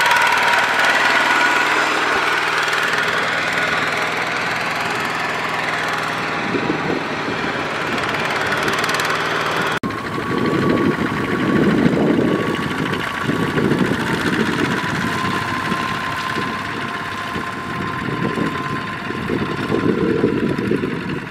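Single-cylinder diesel engines of two-wheel walking tractors running and clattering as they pull loaded trailers; the sound breaks off sharply about ten seconds in and continues with an uneven, pulsing engine note.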